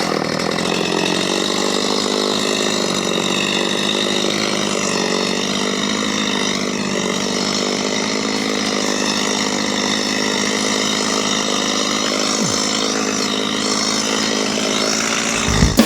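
Gas chainsaw running at high throttle while cutting through tree trunks, its engine note holding steady with only slight wavers in pitch.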